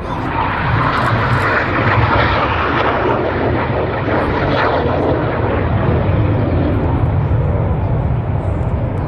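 Red Arrows BAE Hawk jet trainers flying past in formation: a loud, steady jet roar that swells about half a second in.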